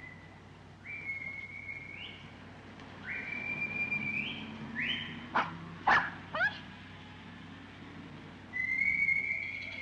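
A person whistling a tune in short notes, each sliding up into a held pitch, then one long note near the end. A dog barks three times in quick succession about halfway through, over a steady low city hum.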